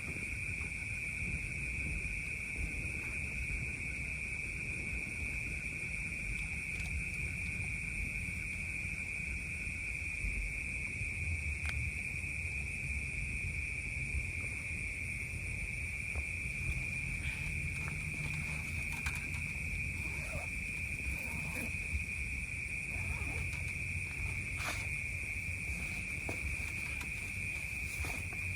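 Steady, unbroken high-pitched drone of a night insect chorus, over a low rumble. Scattered short clicks and knocks come more often in the second half.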